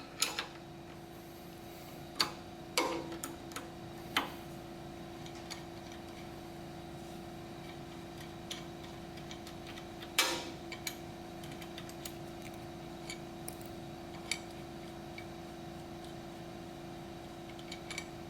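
A hand wrench loosening the half-inch bolts on top of an air compressor's belt guard: scattered metallic clicks and clinks, a few at a time with pauses between, over a steady background hum.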